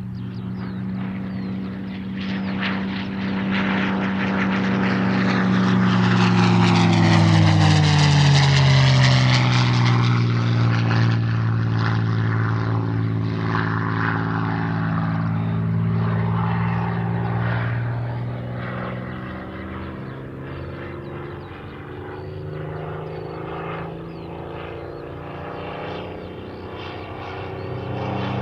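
Piston-engined propeller warbird flying past. Its engine note rises to its loudest about eight seconds in, then drops in pitch as the aircraft passes. The engine stays audible after that, fading and then growing louder again near the end.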